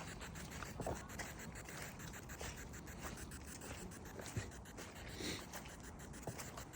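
Faint scratching and rustling with small clicks over a low background hiss.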